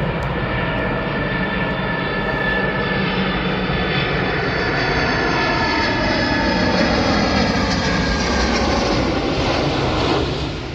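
An airplane passes low overhead: a loud, steady engine rush with tones that slide down in pitch as it goes by, easing off near the end.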